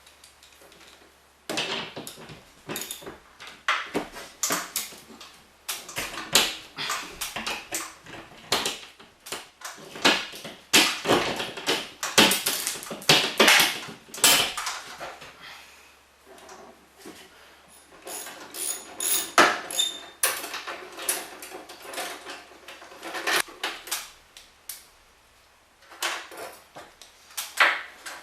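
Repeated clanks, knocks and rattles of metal parts and hand tools being handled, some strikes ringing briefly, as the snapped metal bracket of a garage door opener is worked loose and taken down.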